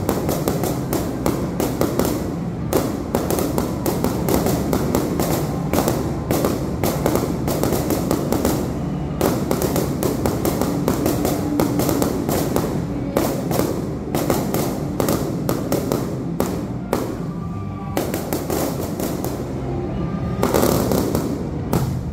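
Aerial fireworks shells bursting in rapid succession: a dense run of booms and crackling stars, several bangs a second with hardly a pause.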